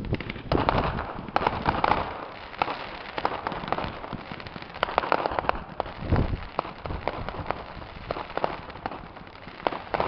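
Fireworks going off: rapid crackling and popping from glittering, crackling shell bursts, with louder bangs about a second in and again around five to six seconds.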